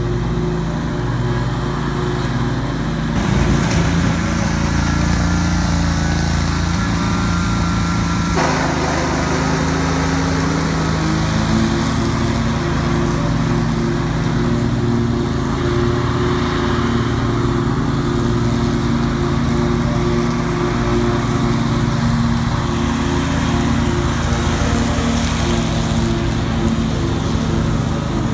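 2003 Great Dane 52-inch stand-on mower (GDSS23KAE) running at full throttle with its blades cutting tall grass, the engine held steady under load, with the cutting noise growing heavier about 3 and 8 seconds in.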